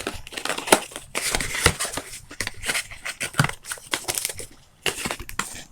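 Sticky tape being picked at and peeled off a cardboard toy box, with crinkling, scraping and tearing as the box is handled in the hands.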